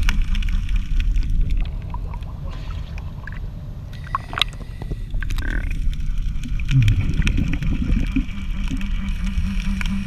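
An engine running steadily at low speed, briefly dropping in pitch about seven seconds in.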